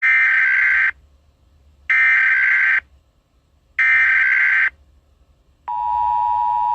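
Emergency Alert System header: three bursts of warbling data tones, each about a second long, then the steady two-tone attention signal starting near the end.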